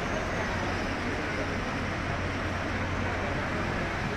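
Steady background road-traffic noise with a constant low hum underneath.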